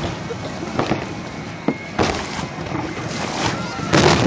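Aerial firework shells bursting in a string of booms that echo, the loudest near the end, over a steady background noise.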